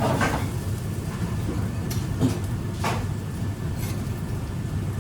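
A steady low mechanical hum, with a few light knocks and clicks about two to three seconds in.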